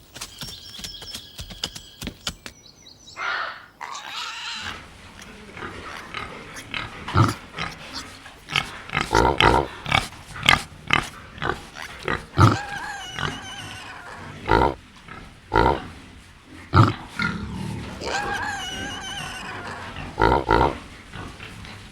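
Pigs grunting and squealing, starting about three seconds in: short loud grunts mixed with higher squeals that bend in pitch.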